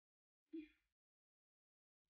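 Near silence, broken once about half a second in by a brief, cut-off snippet of a woman's voice.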